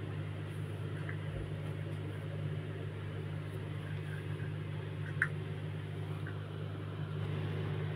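A steady low hum in the room, with faint soft rustling of cloth being rolled up by hand and a couple of light ticks.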